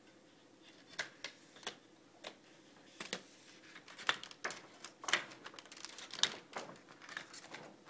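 Thin plastic reflector sheet of an LCD TV backlight being lifted off the LED strips, crackling and clicking irregularly as it flexes and catches on the LED lenses. The clicks start about a second in and come thicker from about four seconds in.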